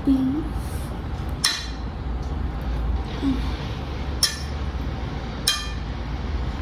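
Cutlery clinking against a plate three times, each a short ringing chink, over a steady low background hum.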